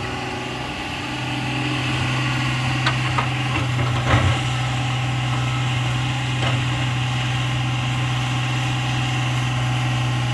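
Excavator's diesel engine running steadily, a little louder from about a second in, with a few short clanks around three and four seconds in.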